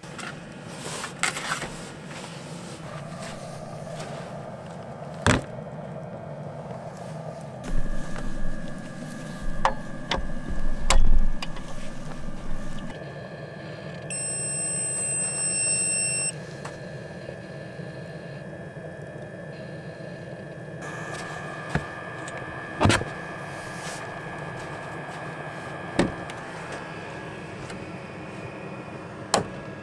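Portable heater running with a steady fan hum and faint whine, a high electronic beep lasting about two seconds halfway through, and several sharp knocks and a burst of clatter from gear being handled.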